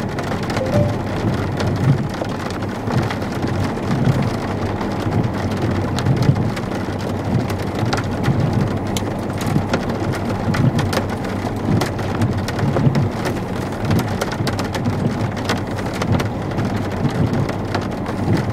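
Heavy thunderstorm rain on a vehicle: a steady rushing hiss over a low rumble, with sharp taps of drops striking the glass that come more often in the second half.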